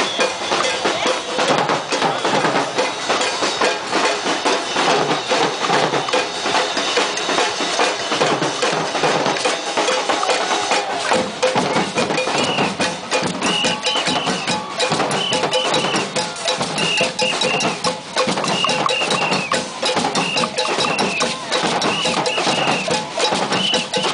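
Street percussion group playing drums and hand-held percussion in a dense, fast, steady rhythm. From about halfway in, short high notes repeat in small groups over the beat.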